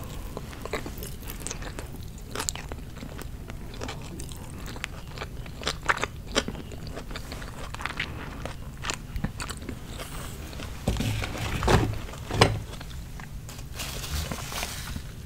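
Close-miked biting and chewing of a Chick-fil-A fried chicken sandwich: crisp crunches and mouth sounds, with the loudest crunches about three-quarters of the way through.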